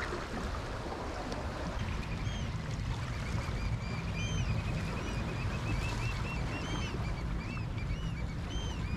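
Steady low rumble of wind and sea surge against jetty rocks, with a run of many short, high chirps starting about two seconds in and repeating to the end.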